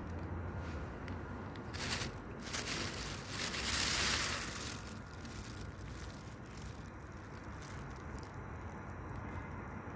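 Steady low hum of street ambience, with two short rustling, hissing noises about two seconds in and from about three to four and a half seconds in, the second the louder.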